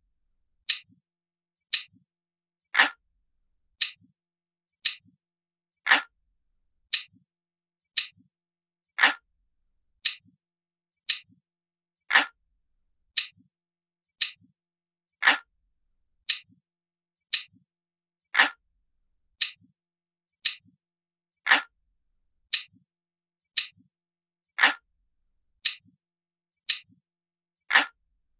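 Crisp glass-like clock ticking, one tick about every second, with every third tick louder and fuller.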